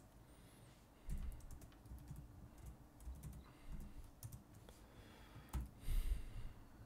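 Typing on a computer keyboard: uneven keystrokes while a line of code is entered.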